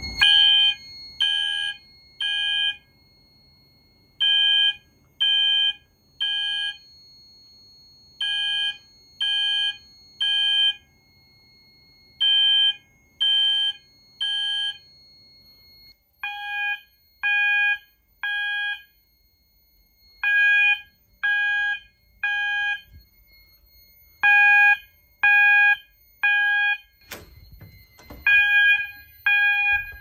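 Fire alarm horn strobes sounding the temporal-3 evacuation signal: three short beeps, a pause, repeating every four seconds. A faint steady high tone runs beneath, and there are a couple of knocks near the end.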